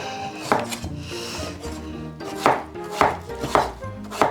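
Kitchen knife chopping on a cutting board: about six separate sharp strokes at uneven intervals.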